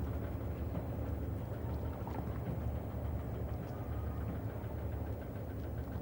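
Waterside ambience dominated by the steady low hum of a distant boat engine, with faint short chirps or ticks above it.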